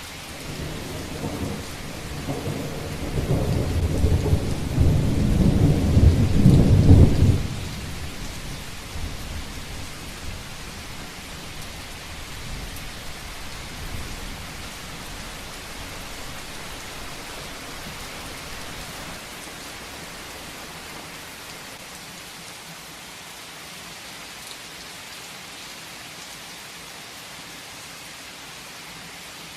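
Heavy rain falling steadily, with a thunderclap that builds over the first few seconds into a loud rolling rumble and then breaks off sharply, leaving a fading rumble under the rain.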